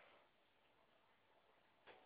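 Near silence: faint room tone, with a soft click right at the start and another just before the end.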